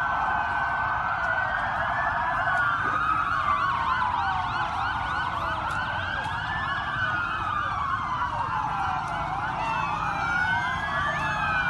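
Several police car sirens sounding together. Slow wails rise and fall every few seconds and overlap with faster yelping sweeps.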